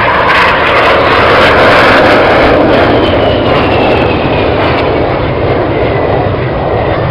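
BAE Hawk T1 display jets flying past with their turbofan engines running: a loud, steady rush of jet noise, with a high whine that falls in pitch in the second half as a jet passes.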